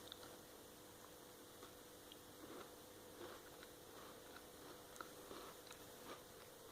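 Faint, irregular crunching of a digestive biscuit being chewed, over a thin steady hum.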